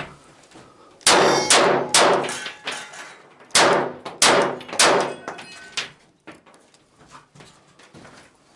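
A string of rifle shots at a competition stage, each with a ringing clang of struck steel targets: three quick shots about a second in, then four more spaced out over the next few seconds.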